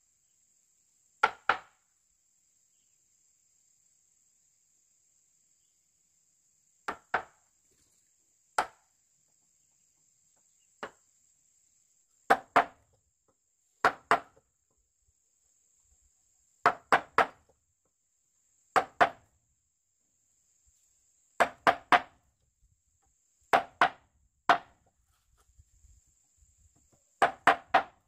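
Sharp strikes of a hand tool on wood, coming singly or in quick pairs every couple of seconds, with three in a row near the end.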